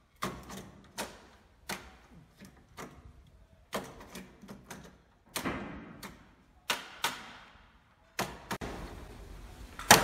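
Irregular sharp knocks and taps of a metal mortise lock body being worked into its cut-out in a wooden door edge, roughly one or two a second.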